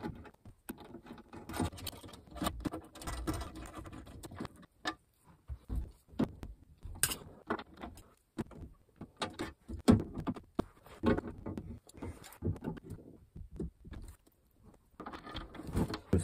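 Keys and a metal cabinet lock being handled, giving irregular small clicks, rattles and jingles with a few sharper clicks.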